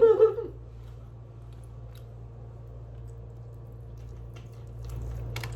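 Low steady room hum with a few faint clicks and rustles, and one sharper click near the end, after a short voice at the very start.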